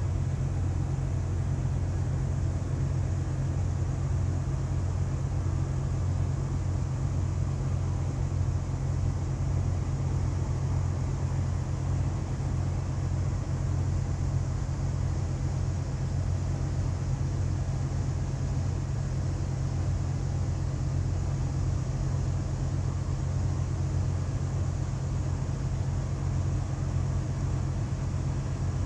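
Steady low machinery hum that holds an even pitch without change, with a faint hiss above it.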